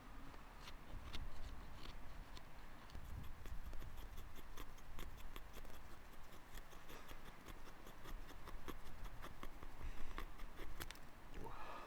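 A run of small, irregular clicks and scraping sounds, like things being handled, with a low rumble underneath.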